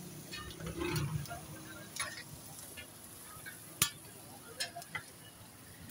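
Shami kababs sizzling on a large flat griddle, with scattered metal clinks from the spatula and a steel plate. The loudest is a single sharp clink about four seconds in.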